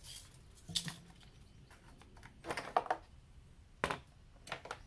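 A few separate sharp plastic clicks and knocks with handling noise: the engine's oil filler cap being taken off to top up the oil. The sharpest click comes near four seconds in.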